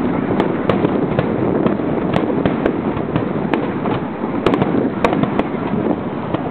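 Fireworks going off: a dense, continuous crackle with sharp cracks at irregular intervals, about two a second.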